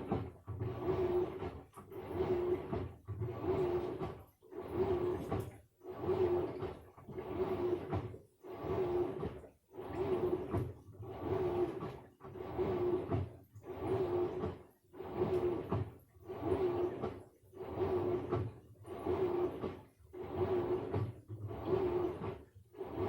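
Samsung washing machine running a wash, its drum motor turning in short, evenly repeated runs about once a second, each with a steady hum and separated by brief pauses.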